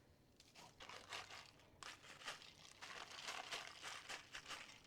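Faint crinkling and rustling of plastic packaging being handled, a few soft scattered rustles.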